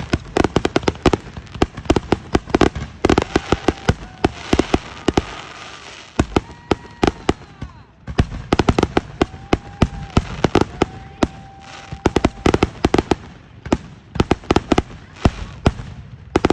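Fireworks show: a dense run of sharp crackling bangs and booms from bursting shells, thinning briefly about eight seconds in and again toward the end, with a few short whistling tones among the bursts.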